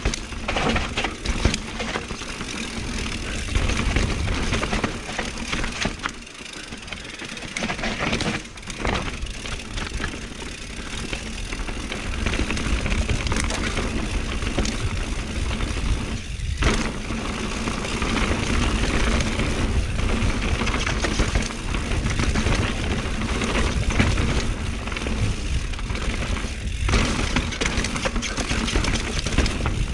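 Mountain bike ridden fast down a dirt forest trail: steady tyre noise on the ground with frequent knocks and rattles from the bike over bumps, under a low rumble of wind on the microphone.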